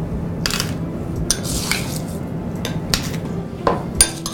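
A metal spoon clinking and scraping against a small glass bowl and tall glasses as crushed ice is scooped out and spooned onto smoothies: a handful of separate sharp clinks and scrapes.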